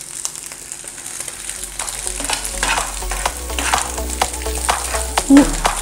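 Scrambled eggs sizzling in a buttered frying pan while being stirred, the utensil scraping and clicking against the pan many times.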